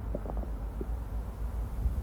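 Amplified stomach gurgling: a scatter of small, short gurgles and pops over a low, steady rumble.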